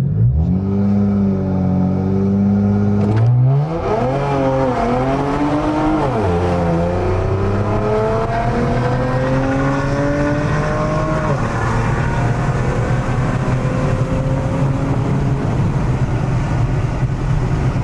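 Infiniti Q50 with catless downpipes and a custom exhaust, heard from inside the cabin during a full-throttle acceleration run. The engine is held at steady revs for about three seconds, then launches and climbs in pitch, dropping back at each upshift, about four and a half, six and eleven seconds in. Near the end it settles into a steadier drone.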